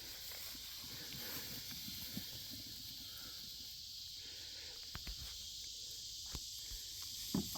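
Steady high-pitched chorus of evening insects such as crickets, with faint scattered rustles and soft knocks, the loudest a short knock near the end.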